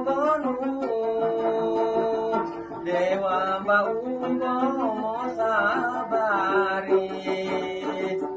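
Gambus, a short-necked plucked lute, being plucked in a repeating melody, with a man singing over it in a wavering voice near the start and again from about three seconds in.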